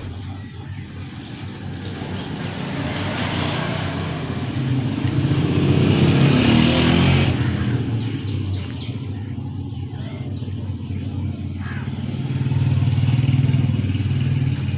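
Engine noise of passing road traffic, swelling louder about five to seven seconds in and again near the end.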